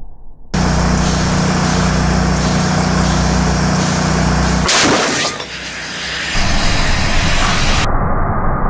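A motor running steadily with a low hum, cut by a brief loud rush of noise about five seconds in, followed by a rougher steady noise.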